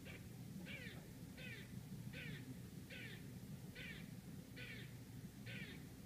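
Eastern gray squirrel barking: a steady series of about eight short, harsh barks, a little over one a second, each dropping in pitch.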